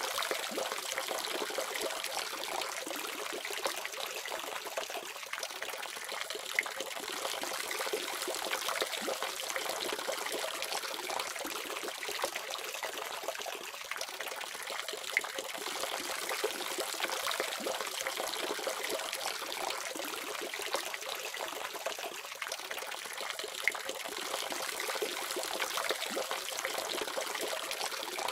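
Water running steadily from a faucet, an even splashing hiss with small scattered drips and splashes.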